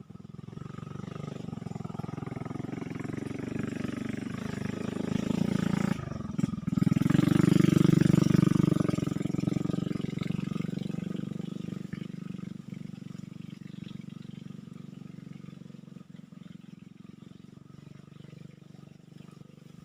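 An engine running at a steady pitch, growing louder to a peak about eight seconds in and then slowly fading away, as a passing vehicle does.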